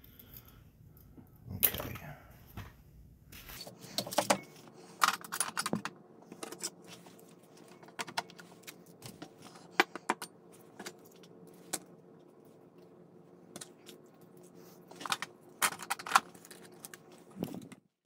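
Small hobby tools, glue bottles and plastic kit parts being picked up and set down on a cutting mat as a modelling bench is cleared: scattered clicks, taps and light clatter at irregular intervals.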